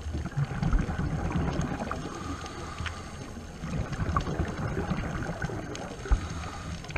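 Underwater ambience heard through a camera housing: a low, uneven rumble of water and bubbles with a faint hiss and a few scattered sharp clicks.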